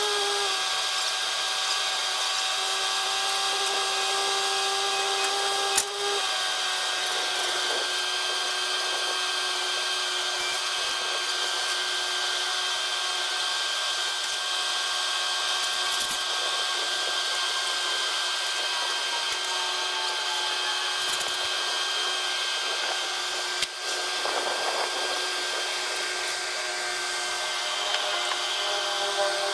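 Bobcat T66 compact track loader running, its diesel engine and hydraulics giving a steady whine that dips slightly in pitch about six seconds in. Two sharp knocks, one about six seconds in and one near the end.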